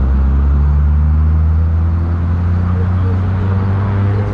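Motorcycle engine running at low revs with a steady drone.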